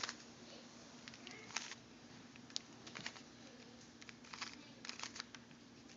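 Faint, irregular clicks and clacks of a plastic Rubik's Cube as its layers are turned.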